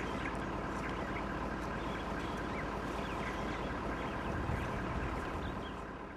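Vehicle engine idling steadily, with short bird chirps over it; the sound fades away at the very end.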